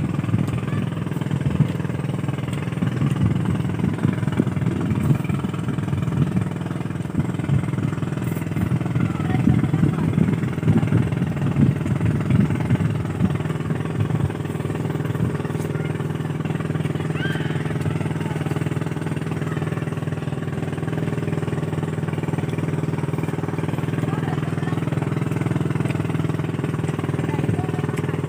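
An engine drones steadily throughout. Irregular close chewing and crunching of cooked sea eel sounds over it in the first half.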